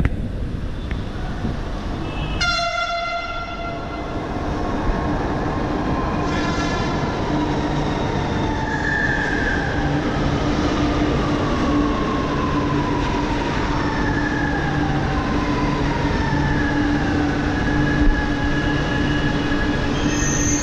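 Chennai Metro electric train pulling into the platform: a short horn blast about two and a half seconds in, then a steady rumble with whining tones that fall in pitch as it slows to a stop.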